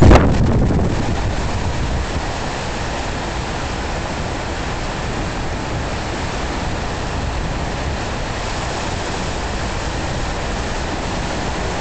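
Storm wind rushing and buffeting the microphone over a river whipped into waves by the wind, a steady roar with a louder gust in the first second.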